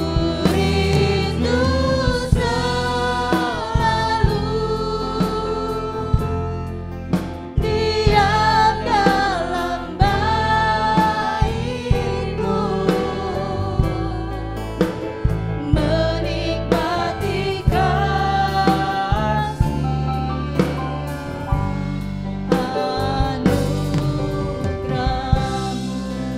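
Gospel worship music from a church worship band: several voices singing sustained, sliding lines over a band with drum kit, the drum hits falling about once a second.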